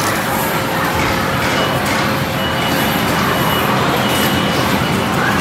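Steady din of a busy indoor play centre: a thick, even wash of background noise with faint voices mixed in.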